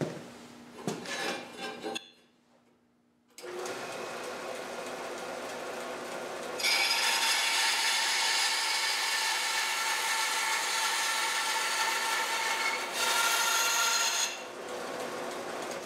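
A 10-inch Rockwell/Delta bandsaw converted for metal, fitted with a metal-cutting blade and a slower-speed pulley, running steadily, then cutting through a metal bar with a loud, high, ringing screech for about seven seconds. After the cut it settles back to plain running.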